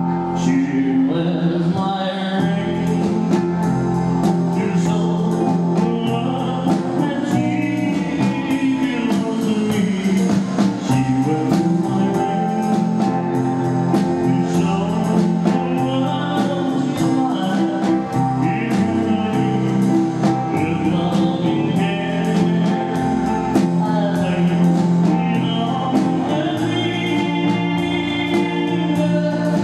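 Live band playing a slow 1950s-style rock 'n' roll ballad, a male singer over guitar, upright double bass, keyboard and drums keeping a steady beat.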